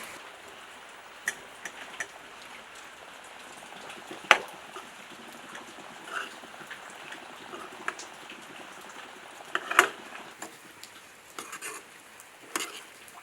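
A spoon knocking and scraping against a pan as fried paneer cubes are stirred into a thick masala gravy: a few sharp clacks, the loudest about four seconds in and another near ten seconds. A steady hiss runs underneath.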